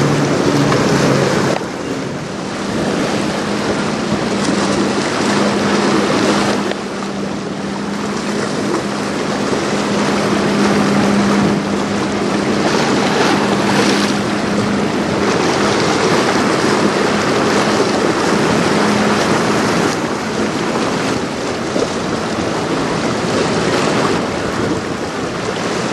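Heavy wind buffeting the microphone over choppy, lapping river water, with a steady low drone through the first half.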